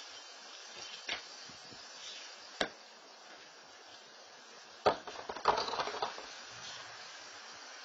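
A couple of light knocks, then a sharp knock about five seconds in and about a second of rattling and crunching, as something is dropped into a cardboard box and shifted around in it. A steady hiss runs underneath.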